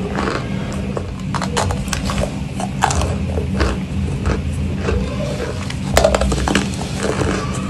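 Cornstarch chunks being bitten and chewed: irregular crunching crackles and squeaks, over a steady low hum.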